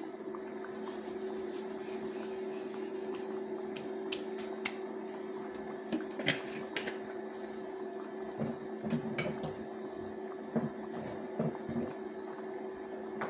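A pot of daal, chana and turnip curry simmering on an electric cooktop, with scattered bubble pops and clicks over the cooktop's steady hum.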